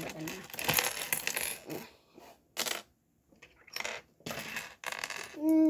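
Small plastic LEGO pieces clattering and clicking against each other in several short bursts, as loose bricks are handled and fitted.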